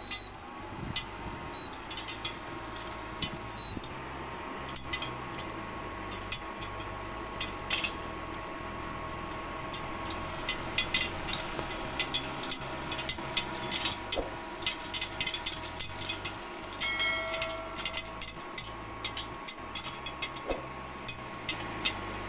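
Popcorn kernels popping in hot oil in a pan: scattered pops at first, turning into rapid, irregular popping from about halfway through.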